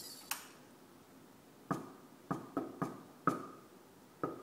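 Knuckles knocking a secret-knock pattern on a door: six sharp raps, each with a short ring, grouped in an uneven rhythm with a pause before the last. This is the coded knock that the door's knock sensor listens for to unlock.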